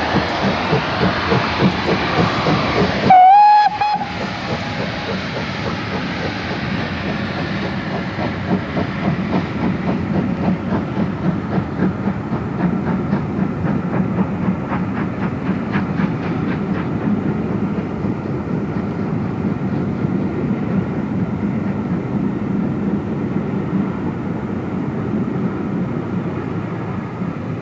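GWR City-class 4-4-0 steam locomotive City of Truro passing at speed with a train. It gives a short, loud whistle blast about three seconds in, and then the coaches roll by with a steady clickety-clack of wheels over the rail joints.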